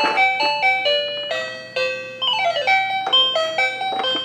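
Battery-powered toy bus playing an electronic song through its built-in sound module: a melody of short, chime-like stepped notes, with a quick run of falling notes about halfway through.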